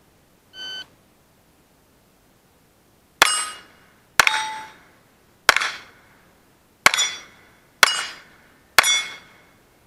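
A shot timer's electronic start beep about half a second in, then six pistol shots at roughly one-second intervals. Each shot is followed by the ring of a steel target plate being struck.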